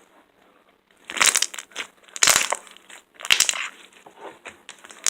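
Homemade glue-and-borax slime squeezed in the hands, popping and crackling as air pockets burst: three crackly squeezes about a second apart.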